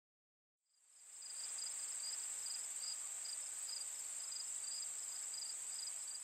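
A chorus of insects, crickets by the sound of it, chirping steadily. It is a continuous high trill with a softer chirp repeating about three times a second, and it fades in about a second in.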